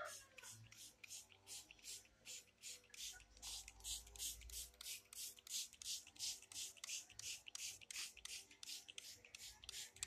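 Hand trigger spray bottle squirted rapidly and steadily, about four short hissing sprays a second.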